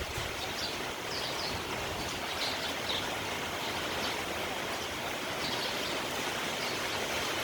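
Steady hiss of falling rain, with faint, scattered chirps of sparrows, most of them in the first few seconds.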